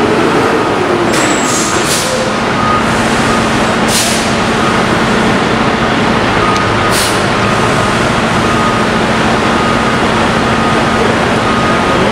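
Curbtender garbage truck running steadily with its body raised on the hydraulic hoist to dump its load, the engine and hydraulics making a constant loud hum. Several short hisses come through, about 1, 2, 4 and 7 seconds in.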